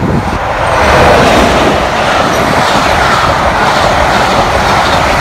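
Class 33 diesel locomotive, with its Sulzer eight-cylinder engine, passing close by, loudest about a second in. Its train of passenger coaches follows, rolling steadily past.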